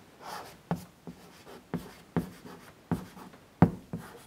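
Chalk writing on a blackboard: about six sharp taps of the chalk against the board, the loudest near the end, with faint scratching between strokes.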